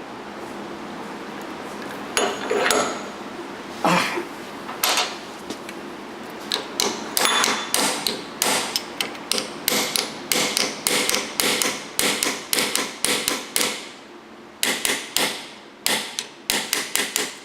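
Hammer tapping a wedge to drive a part of a Rolls-Royce Silver Shadow electric door lock solenoid up and off, metal on metal. A few spaced taps first, then a fast run of about two to three taps a second, pausing briefly and resuming near the end.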